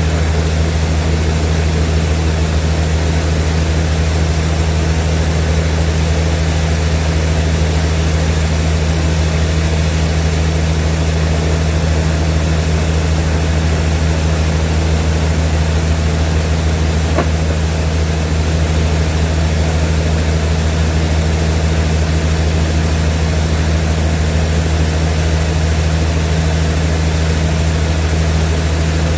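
Sawmill machinery running with a steady, unchanging low hum.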